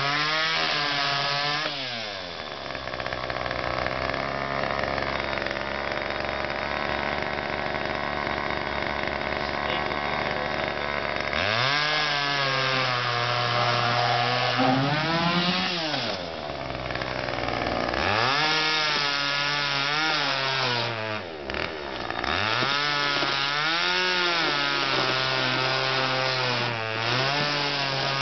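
Gasoline chainsaw running hard and cutting through a couch's frame and upholstery. The engine pitch drops and climbs again several times as the throttle is eased and opened.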